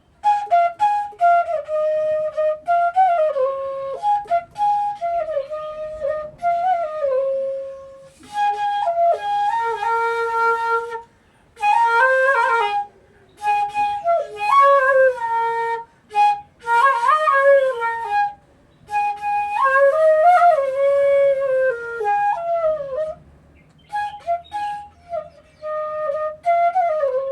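C-sharp bansuri (Indian bamboo flute) playing a melody in phrases, with slides and ornaments between notes and short breaths between phrases.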